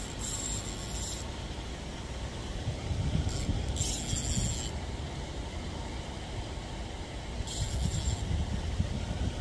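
Low rumbling wind noise on the microphone, with three short bursts of high hiss: one at the start, one about four seconds in and one near the end.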